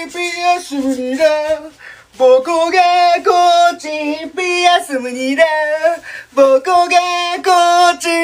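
A high voice singing a tune alone in short held notes, breaking off briefly about two seconds in and again near six seconds.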